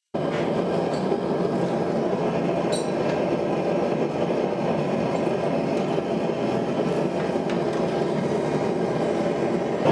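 Gas forge burner running with a steady rushing roar while it heats a canister billet. One or two faint metallic clinks sound in the first few seconds.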